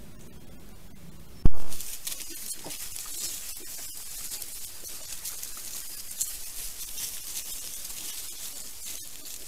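A sharp, loud click about one and a half seconds in, then wild boar piglets and their sow foraging in grass: soft rustling and pattering ticks over a steady high hiss.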